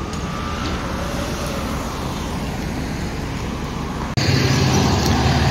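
Road traffic on a town street: a steady low rumble of passing cars. The sound cuts abruptly to a louder, steadier rumble about four seconds in.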